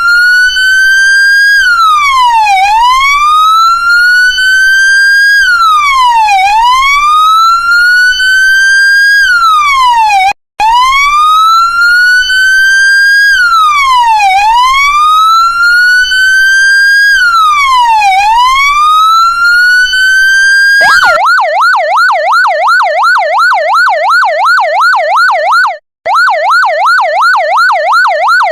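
Electronic American-style emergency-vehicle siren on the wail, a slow rise and quicker fall repeating about every four seconds. About three-quarters of the way through it switches to the fast yelp, about three sweeps a second. The sound cuts out for a split second twice.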